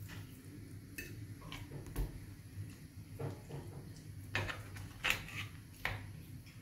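Raw chicken breast being cut into strips on a ceramic plate, the blade clicking and scraping against the plate several times.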